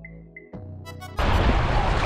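Background music fading out with a few short electronic blips, then about a second in, the abrupt start of wind buffeting a kayak-mounted camera's microphone and water washing around the kayak's hull.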